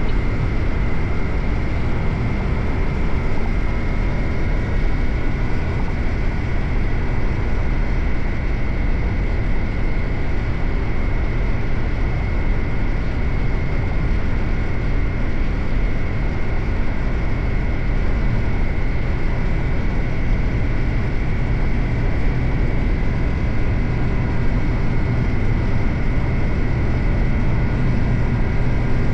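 Suzuki GSX-8R's 776 cc parallel-twin engine running at a steady cruise, with no clear revs or gear changes.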